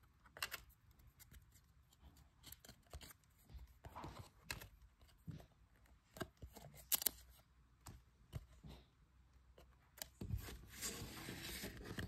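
Chromium-stock trading cards being flipped one by one from the front to the back of a hand-held stack: soft clicks and slides of card against card, with one sharper click about halfway through. Near the end a longer rustle as cards are slid together on the pile.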